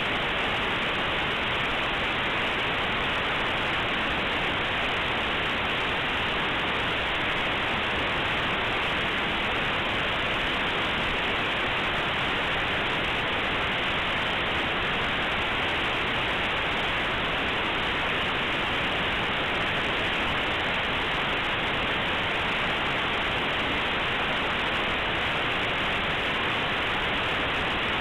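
Steady, even hiss of white noise from a compressed Linux kernel image played as raw audio through aplay. The compressed bytes are close to random, and aplay's default of 8-bit samples at 8 kHz leaves nothing above about 4 kHz.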